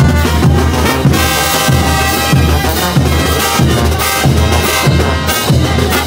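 Bolivian street brass band playing a tune with a steady beat: trumpets and trombones carry the melody over sousaphones, a bass drum and crashing hand cymbals.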